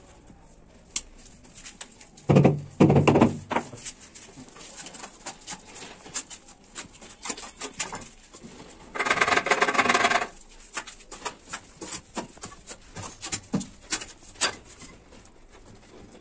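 Granite slab pieces and a mason's trowel being handled on a mortar-bedded counter: scattered light taps and clicks of stone on stone, with two longer, louder noises, about two seconds in and about nine seconds in.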